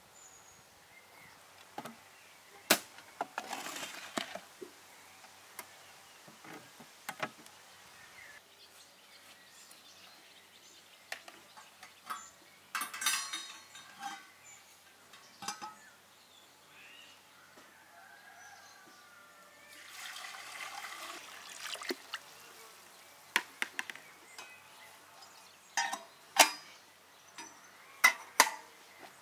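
Metal clinks and knocks as a stainless-steel samovar is handled, its lid opened and closed and the top crown piece set in place, scattered irregularly, with a few short rushing noises lasting a second or two.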